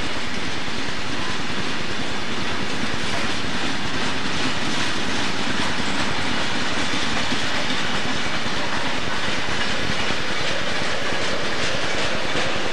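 Southern Pacific freight train cars rolling steadily past, steel wheels clacking over rail joints amid a continuous rumble. The clicks are plainer near the end.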